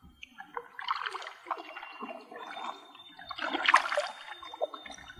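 Kayak paddle working the water: splashing and water trickling off the blade, with two louder splashes, about a second in and again between three and four seconds in.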